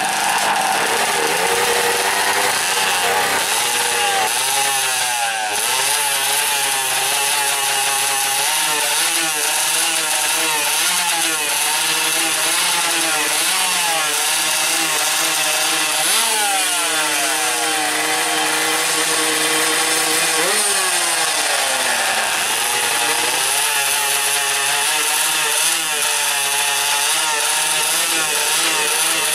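Two-stroke 125cc drag-racing motorcycles held on the start line, their engines revved up and down again and again in rising and falling buzzing whines before the launch.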